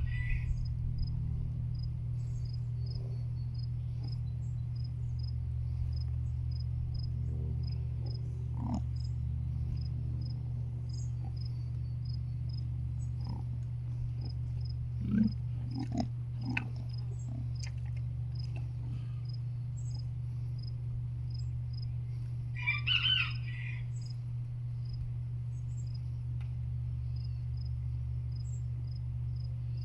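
Farmyard ambience: an insect chirping steadily, about two or three chirps a second, over a steady low rumble. A rooster crows once about three-quarters of the way in, and a few short animal calls sound around the middle.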